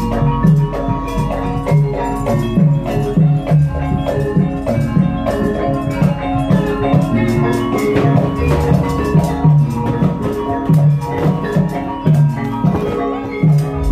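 Javanese gamelan music accompanying a jaranan (kuda kepang) horse dance: low drum beats about twice a second over repeating pitched metallophone tones.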